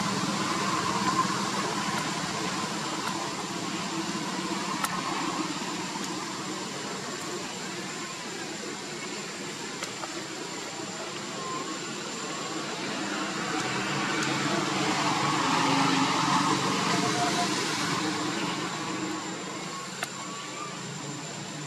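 Steady outdoor background noise, a hiss with a thin high tone over it, swelling in loudness about two-thirds of the way through, with faint indistinct voices in it.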